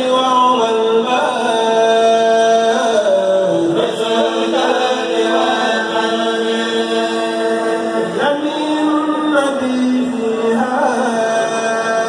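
A kourel, a group of Mouride men's voices, chanting a religious poem together into microphones, with long held notes that slide slowly from one pitch to the next.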